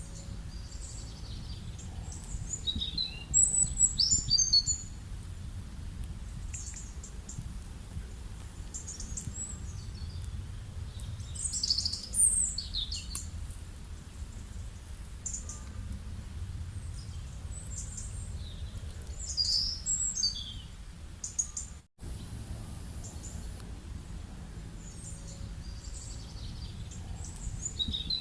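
Small birds chirping and trilling in short high bursts, about three clusters with a few scattered chirps between, over a steady low background rumble. The sound cuts out for an instant about two-thirds of the way through.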